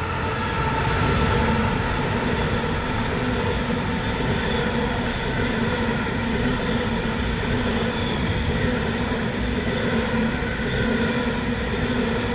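Freight train's container wagons rolling past at speed: a steady, even rumble of wheels on the rails with a faint held hum underneath.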